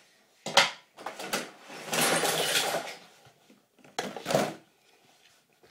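Handling noise: a sharp knock, scattered clicks, a noisy scrape lasting about a second, then another knock, as hard objects are handled close to the microphone.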